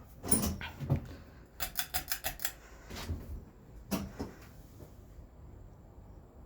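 Sharp clicks and knocks as the ceiling fan is handled and switched. There is a quick run of about six clicks in under a second, then a few single knocks. After that only a faint steady low hum is left.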